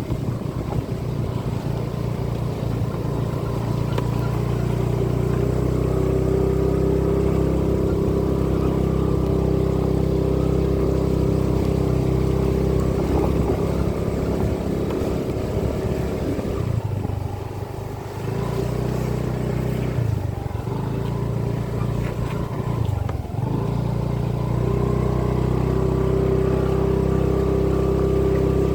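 An engine running with a steady drone, its pitch dipping and wavering for a few seconds past the middle before it settles again.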